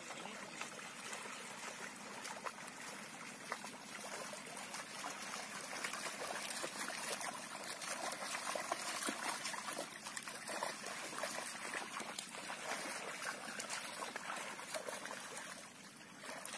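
Muddy water sloshing and splashing as a wooden log leveller is dragged through a flooded rice paddy on a rope, with rubber boots wading in the mud. The continuous wet splashing grows somewhat louder through the middle.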